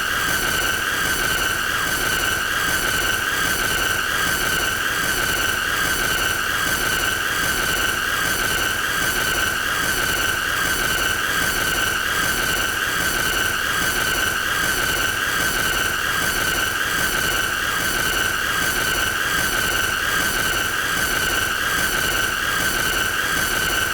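A continuous high-pitched squealing tone, held at one pitch with only a slight wobble, with fainter higher overtones and a steady hiss beneath it.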